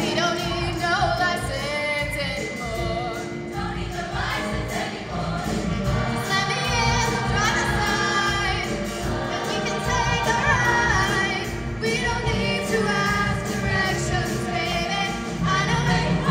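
Show choir singing together over instrumental accompaniment with a beat.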